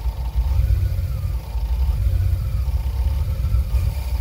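OMC 3.8-litre V6 inboard boat engine with Holley Sniper throttle-body fuel injection, running at a rough idle just after starting, its loudness pulsing unevenly.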